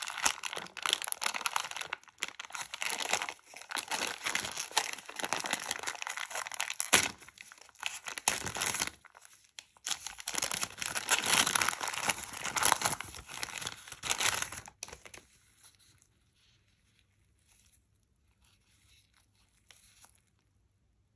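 Magnum ice cream bar's metallised plastic wrapper crinkling and tearing as it is pulled open and peeled off, with one sharp, louder crack about seven seconds in. After about fifteen seconds the crinkling stops and only faint handling sounds remain.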